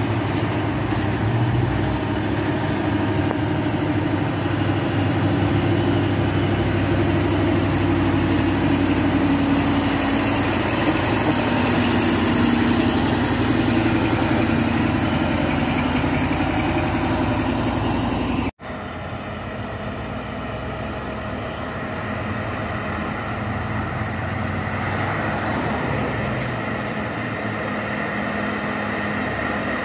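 Diesel engines of heavy cargo trucks running under load as they pull up a steep hill road, steady and loud. About two-thirds of the way through the sound cuts off sharply, and a quieter truck engine follows as another truck approaches.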